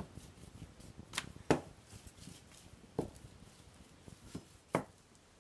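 Samosa pastry being rolled out with a wooden rolling pin on a floured worktop: five sharp, irregularly spaced knocks of the pin and hands against the surface over a faint rustle of rolling.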